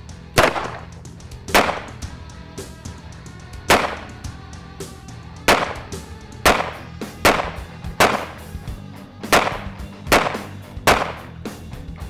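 About ten single gunshots fired at a refrigerator, starting with a 9mm pistol. Each shot is sharp with a short echoing tail, spaced irregularly about a second apart, over background music.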